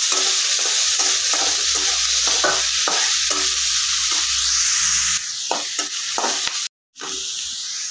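Chopped onion and curry leaves sizzling in hot oil in a kadai, stirred with repeated scrapes of a spatula against the pan. The sizzle drops somewhat about five seconds in, and the sound cuts out for a moment near the end.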